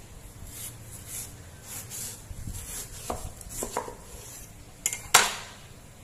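Cleaver slicing through a watermelon wedge, its rind and flesh, in a series of short scraping strokes with a few light clicks. About five seconds in the knife gives a single sharp clack, the loudest sound here.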